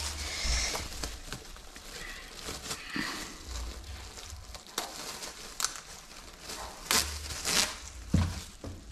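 Thin plastic food bag pulled off a roll, torn off and crinkled open by hand: irregular rustling with scattered sharp crackles, a few louder ones near the end.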